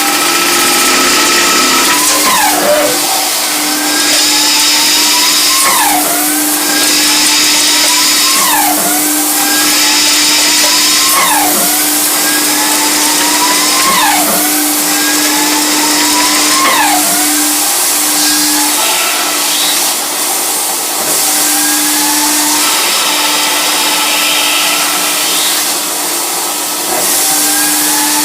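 CNC lathe running. Its spindle whine rises slowly and then drops sharply, over and over about every two and a half seconds, over a steady hum and hiss.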